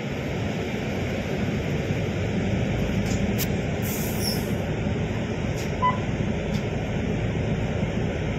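Steady low rumble of a moving vehicle, with a few faint ticks in the middle.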